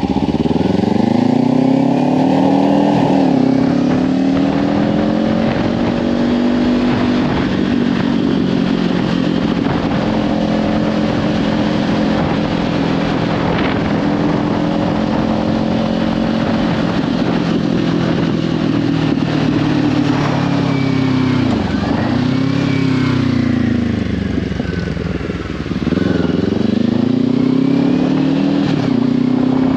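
Kawasaki Ninja 500's parallel-twin engine through a Leovince slip-on exhaust, riding along with the revs rising and then dropping sharply several times. Heavy wind noise on the microphone runs underneath.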